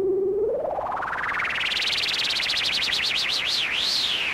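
MFOS Sound Lab Mini-Synth playing a single electronic tone whose pitch is being modulated by its LFO. About half a second in, the tone glides from a low pitch up to a high, whistly one with a fast wobble. As the LFO knob is turned, the wobble slows into a siren-like up-and-down sweep about twice a second.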